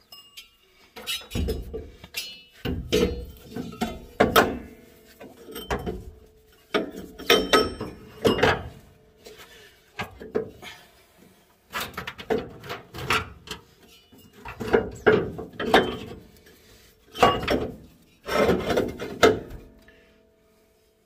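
Rubber double-bellows air bag being pushed and worked up into a car's front spring pocket, rubbing and bumping against the metal frame and control arm in irregular scrapes and knocks.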